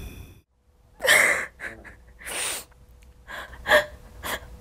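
A woman crying: about six gasping, sniffling breaths starting about a second in.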